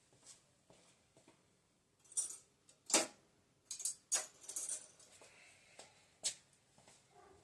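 Metal hand tools, wrenches, clinking and rattling as they are picked through and handled: a series of sharp clinks, the loudest about three seconds in and a quick cluster a second later.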